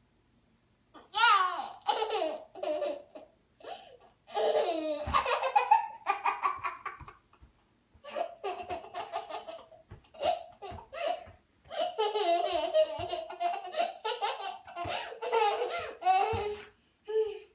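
A young child laughing and squealing in repeated high-pitched bursts, starting about a second in.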